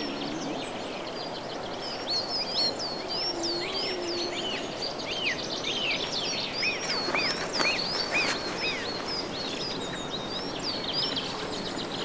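Small songbirds chirping: many quick, high, swooping calls, with a few lower notes around the middle, over a steady rushing background.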